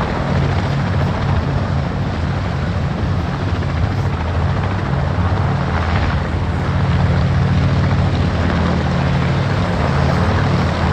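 Sikorsky helicopter flying past, its main rotor beating in a rapid steady chop over the engine's running noise, loud throughout.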